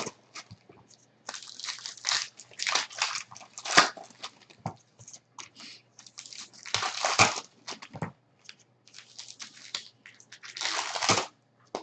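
Trading-card packs and cards being handled and opened: irregular crinkling and rustling of wrappers and cards, with a few sharper crackles.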